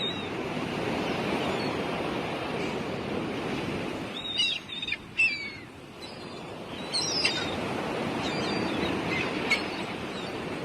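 Sea surf washing steadily on the shore, with birds calling in short falling cries in clusters about four seconds in and again about seven seconds in.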